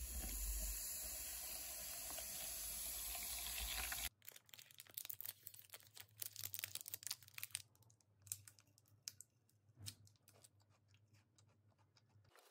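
Water pouring from a plastic bottle into a plastic cup. About four seconds in, it gives way to a snack bar's wrapper being torn open and crinkled: irregular crackling clicks that thin out toward the end.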